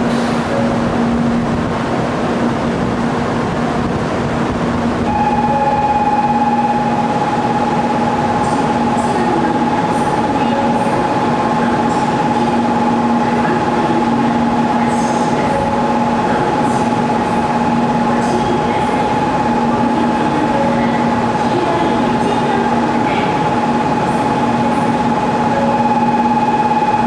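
Kyushu Shinkansen 800 series bullet train standing at the platform with its electrical equipment running: a steady low hum, joined about five seconds in by a steady higher whine.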